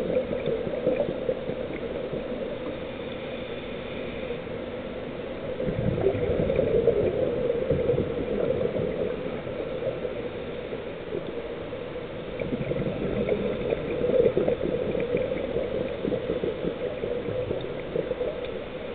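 Scuba diver breathing through a regulator underwater: exhaled air bubbles out in gurgling surges about every six seconds, with quieter stretches between breaths.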